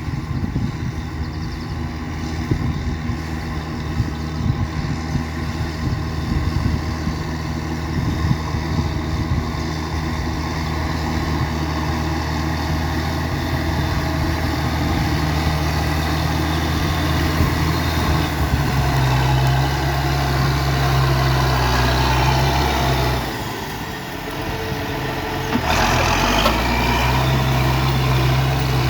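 Tractor engine running steadily while ploughing a wet field. Its note shifts about two-thirds of the way in, then dips briefly near the end before picking up again.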